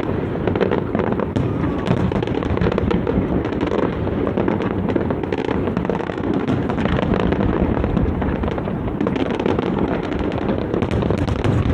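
Large fireworks display going off in a dense, unbroken run of booms and crackles, with no pause between bursts.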